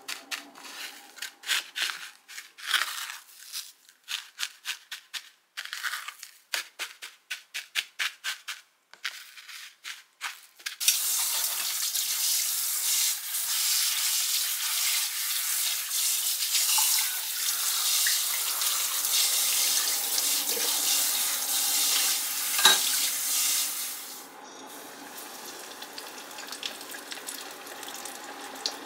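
Hands patting panko breadcrumbs onto pork cutlets in a plastic container: a quick run of rustling pats. About eleven seconds in, a kitchen tap runs steadily for about thirteen seconds while things are washed in the sink. Then tonkatsu deep-frying quietly in oil.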